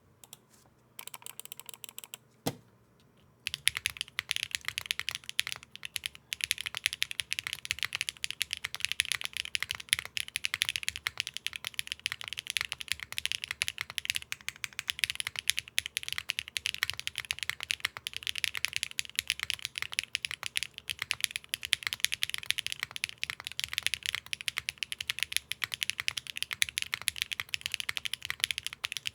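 Fast, continuous typing on a mechanical keyboard with Keygeek Explosion switches, an aluminium plate, GMK keycaps and no foam: quite poppy and clacky. A single knock comes about two and a half seconds in, and the typing starts about a second after it.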